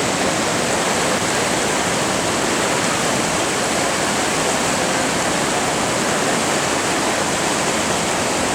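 A flooded creek running high, its water rushing in a loud, steady roar without a break.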